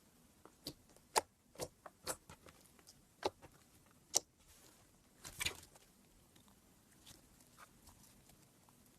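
Slime being squeezed and poked by hand, giving a run of sharp, uneven pops and clicks and a short crackling squelch about five and a half seconds in.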